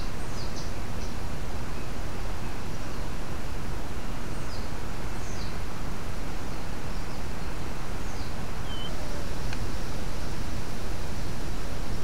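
Birds chirping: short, high calls that slide downward, scattered every second or two over a steady rushing background noise.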